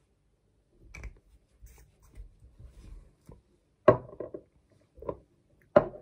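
Lip gloss bottles being handled and set down on a table: soft clicks and rubbing, then two sharp knocks as the bottles are put down, about four seconds in and again just before the end.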